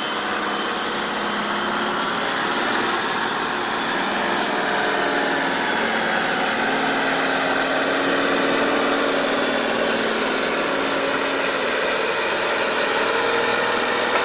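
Heavy three-axle dump truck's diesel engine running under load as it climbs a steep sand pile: a steady drone whose pitch drifts and rises slightly near the end.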